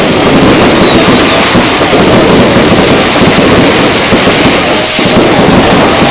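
Aerial fireworks shells bursting in a dense, continuous barrage of loud bangs, near enough and loud enough to keep the phone's microphone near its limit throughout. There is a brief high hiss about five seconds in.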